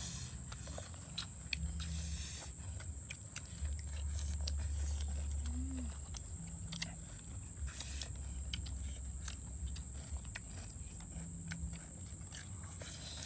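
Several people chewing food, with many small mouth clicks scattered through. A low rumble comes and goes underneath, strongest about four to six seconds in.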